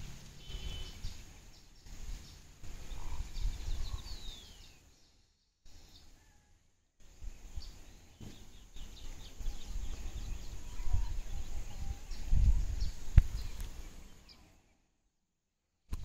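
Low rumbling noise on the microphone with faint, scattered bird chirps and a falling whistle; the sound drops out completely twice, about five seconds in and near the end.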